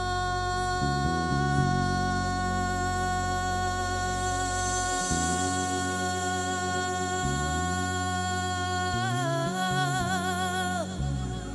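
A woman singing, holding one long note for most of the time, then breaking into a wavering, ornamented run that ends near the close, over a band's bass line that moves in steps beneath.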